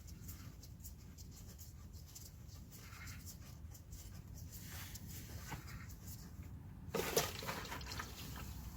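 Faint, scattered clicks of hand tools working on the van's transmission plugs, over a low hum. About seven seconds in comes a louder, short scrape or clatter.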